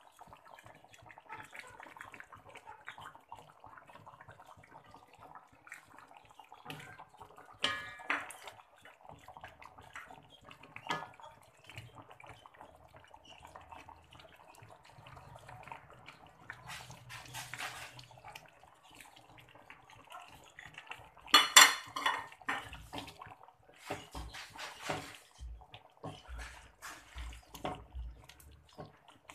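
A wooden spatula scrapes and knocks in a metal wok of fish curry while a plate clinks against the wok as okra and tomato wedges are tipped in. The knocks are scattered, with the loudest clatter about two-thirds of the way through and a run of knocks near the end.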